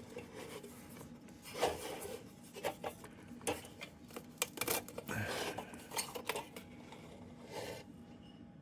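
Metal parts of a 1928 Dietz Monarch hot blast lantern being handled and taken apart: scattered clicks, light clinks and rubbing of steel on steel.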